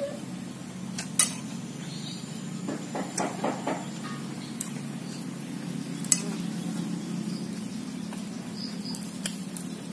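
Spoon clinking and scraping against plates while eating, with a few sharp clinks about a second in, around six seconds in and near the end, and a short run of softer scrapes in between.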